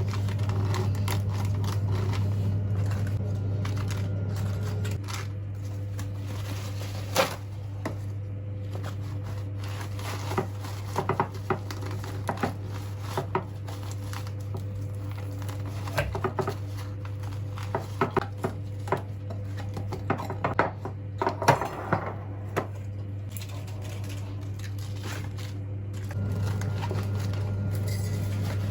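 Dishes and utensils clinking and knocking at irregular intervals over a steady low hum, with a few louder knocks.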